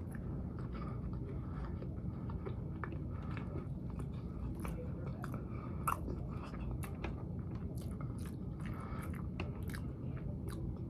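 Close-up chewing and biting of chicken wings: irregular wet clicks and crunches of a mouth eating, over a steady low hum. One sharper click stands out about six seconds in.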